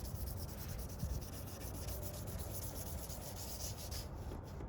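Hand wet-sanding of a yellowed plastic headlight lens with a sanding pad: a steady rubbing hiss of grit scrubbing the kept-wet surface to take scratches off, easing off near the end.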